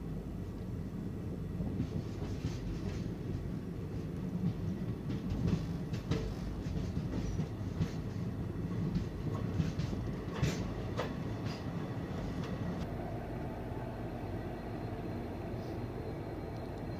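Passenger train running, heard from inside the coach: a steady low rumble with irregular sharp clacks of the wheels over the track, thickest in the first two-thirds and easing off near the end.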